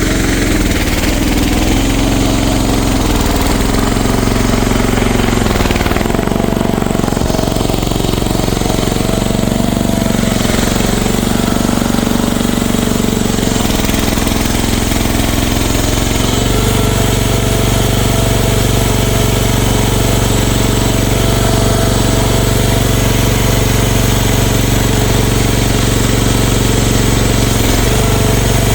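CFG MX15RX mini excavator engine running with a rattly clatter, its note shifting up and down several times in the first half, then holding steady.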